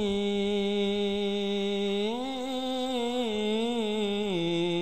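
A solo male voice sings sholawat without drums, holding one long note. About two seconds in the pitch steps up into a wavering ornament, then settles back to the first pitch near the end.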